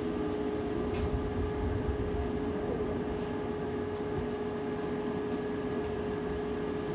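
Strong storm wind blowing and buffeting the microphone in low, rumbling gusts, with a steady hum running through it.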